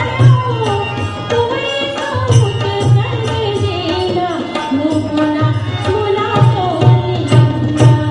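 A woman singing a melody with drum accompaniment, the drum keeping a steady repeating beat under her voice.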